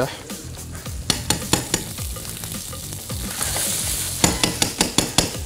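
Raw shrimp and garlic sizzling in oil in a hot nonstick frying pan, searing over high heat. A run of sharp clicks and scrapes from about a second in, thickest near the end, as the pan is stirred.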